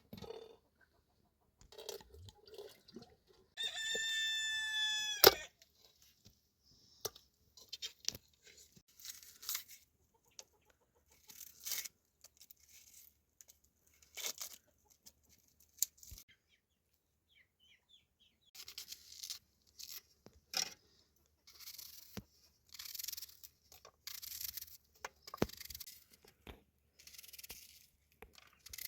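A rooster crows once, a single held call of about a second and a half, about four seconds in. Scattered clicks and short rustles of work sounds follow.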